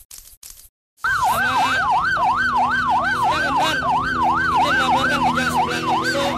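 Police car siren in yelp mode, a fast up-and-down wail about three times a second, starting about a second in. Before it, two short swishes from a news title sting.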